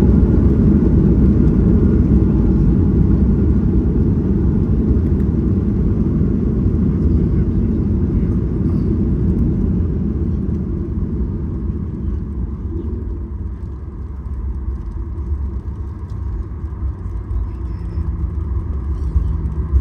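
Low, steady rumble inside a jet airliner's cabin just after landing, easing off gradually over the first dozen or so seconds as the plane slows on the ground, then holding steady.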